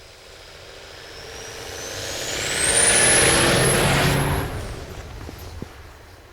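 Off-road 4x4 vehicle's engine running under throttle as it passes close by, growing louder to a peak about three seconds in and then fading away. A high whine climbs in pitch as it nears.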